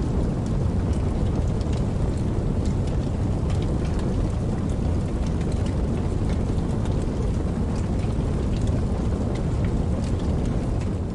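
Steady rain falling, a dense low rush with many small, scattered drop ticks; it cuts off suddenly at the very end.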